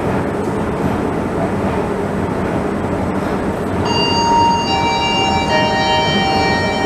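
A steady rumbling hum of the escalator and station hall. About four seconds in, a public-address chime starts: several sustained, bell-like notes at different pitches, entering one after another and overlapping, as the signal before a station announcement.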